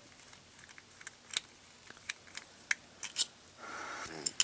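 Scattered light clicks and taps of a small plastic RC electronic speed controller case being taken apart by hand, its bottom screws undone and the case pulled open, with a brief scraping rustle about three and a half seconds in.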